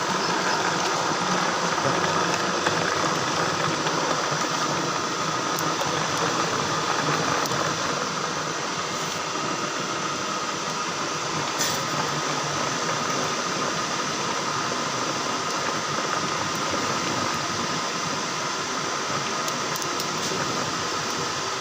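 Electric soybean and nut milk grinding machine running steadily with an even whine, grinding beans with water into milk slurry.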